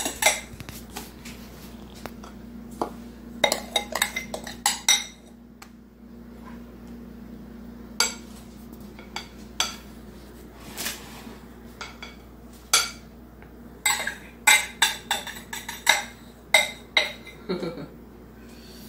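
Metal spoon clinking and scraping against a glass mixing bowl and a ceramic baking dish as meringue is spooned out. The sharp taps come irregularly, in clusters, over a faint steady hum.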